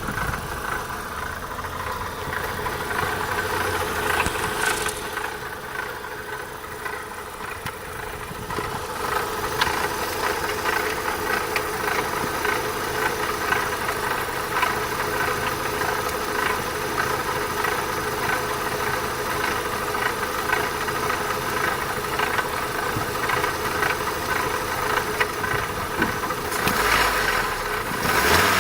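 Opel Astra X16XEL 1.6 16V four-cylinder petrol engine running at idle with a rapid rattling, ticking noise over its steady hum. A louder rush of noise comes near the end.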